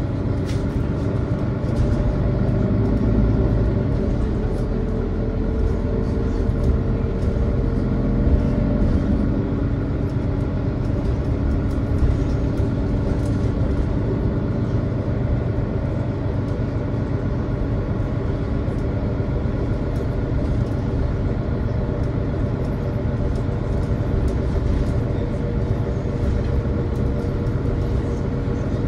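Mercedes-Benz Citaro city bus riding along, heard from inside: a steady engine and road rumble whose engine note rises a little during the first ten seconds, with a few faint rattles.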